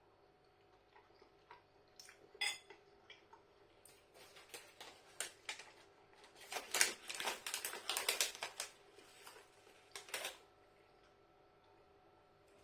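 Fork clinking and scraping against a bowl while picking up food: a few scattered clicks, then a busier run of clinks and scrapes in the middle, and a last couple of clinks near the end.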